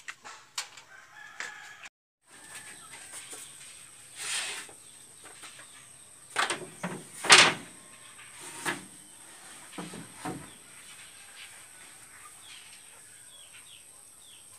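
A rooster crowing, loudest a little past halfway through, among a few scattered short knocks.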